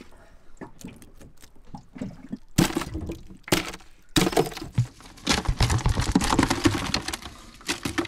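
Live spot prawns being emptied out of a wire-mesh prawn trap into a plastic tub: wet clattering and splashing with knocks of the wire mesh. There are scattered clicks at first, two short bursts around the middle, then a longer spell of busy clatter near the end.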